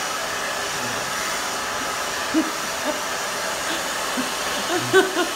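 BaByliss Nano Titanium hair dryer blowing steadily, a constant rush of air, with a few short vocal sounds over it, the loudest near the end.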